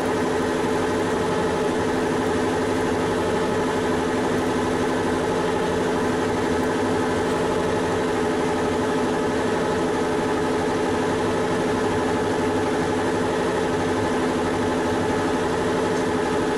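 Weiler Matador lathe running steadily at 850 rpm, its gear train giving an even multi-tone hum, while a 6 mm drill in the tailstock is fed by hand into the work.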